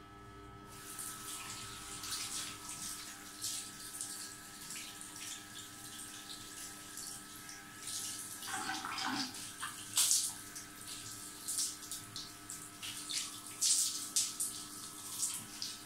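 Wet, crackling squelches of hands scrunching and working hair product through wet curly hair, irregular and close, starting about a second in.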